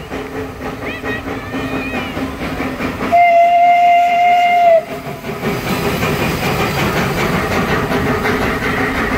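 A small narrow-gauge steam locomotive sounds its steam whistle once, a steady single-pitched blast of about a second and a half, as it passes close by. Around the blast, the engine and its carriages rumble and clatter along the track.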